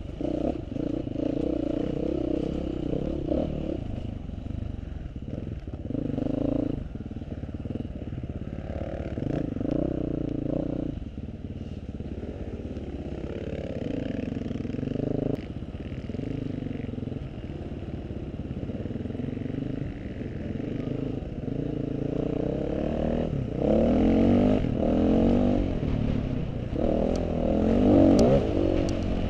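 Off-road motorcycle engine revving up and down over and over as the throttle is opened and closed, its pitch climbing in short spurts and falling back. It gets louder in the last few seconds, with a few light ticks near the end.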